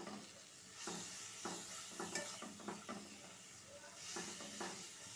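A spatula stirring and scraping onion paste and ground spices frying in mustard oil in a nonstick pan, in short strokes about every half second with a brief pause past the middle, over a faint steady sizzle.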